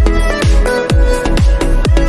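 Electronic dance music: a steady kick drum about twice a second under sustained synth chords and melody.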